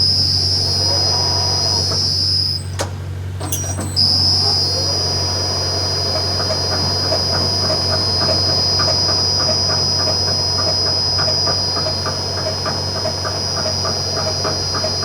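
40-ton overhead crane running with a steady high-pitched whine over a low hum. The whine stops briefly and starts again a little over a second later. Soon after, a regular clunking ticks at about three a second; this is the odd clunking noise being checked for a fault.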